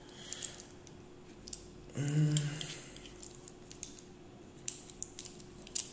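Light metal clicks and taps of a small steel gear puller's jaws and a socket being handled and fitted together. A short low voiced murmur comes about two seconds in.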